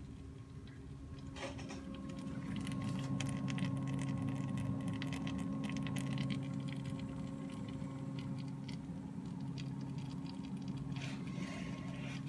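Home-built water-cooled PC running: a steady low hum from its pump and fans, with irregular fine crackling and ticking over it, densest in the middle of the stretch.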